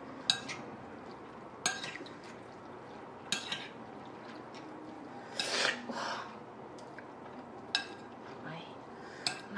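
A fork and chopsticks clinking and scraping against a ceramic bowl as noodles are stirred and mixed: sharp clinks every one to two seconds, with a longer scrape about halfway through.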